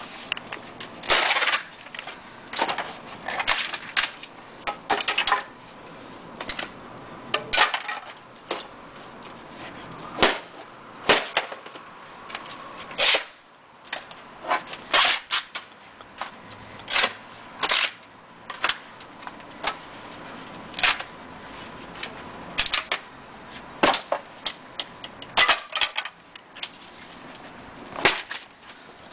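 Old framed canvas paintings being smashed up by hand: a long run of sharp cracks and snaps, irregular, about one a second, as the wooden frames and stretcher bars break and strike the asphalt.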